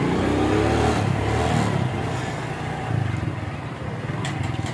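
Small motorcycle engine running as the bike rides up the street toward the listener, a steady low rumble with its engine note shifting in the first second.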